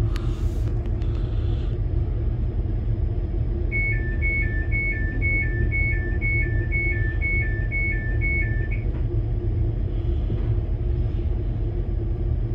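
Train door warning beeps, alternating between a higher and a lower tone about two and a half times a second for some five seconds. They play over the steady low hum of the train standing at the platform.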